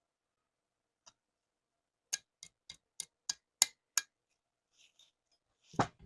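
Pistol parts being handled: a run of about seven sharp clicks, roughly three a second, then a single heavier knock near the end.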